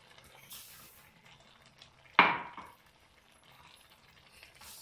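One sharp metallic clank against a steel cooking pot about two seconds in, ringing briefly, with a fainter knock about half a second in, as sugar is added to the pot of grated carrots.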